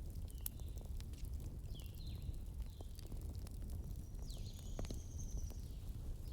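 Wood fire burning with a low steady rumble and scattered sharp crackles and pops, with several short high chirping whistles and one longer thin whistle about four seconds in.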